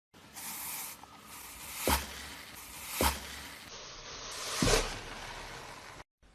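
Slime being squished and pressed, with three louder pops at about two, three and just under five seconds.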